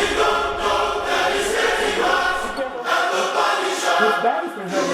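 Several voices singing together in a choir-like, a cappella way, with held notes that bend in pitch.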